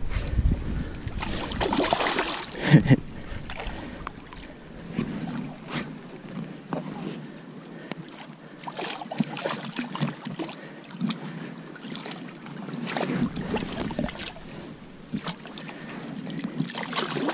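Water splashing and sloshing in irregular bursts as a hooked coho salmon thrashes in shallow river water at the bank, loudest in the first few seconds.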